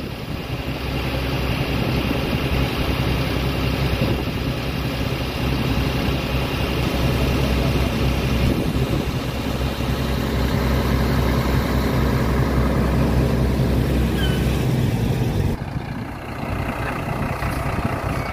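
Diesel engine of a Fuso boom truck running steadily, a low even hum that drops abruptly to a quieter level about three-quarters of the way through.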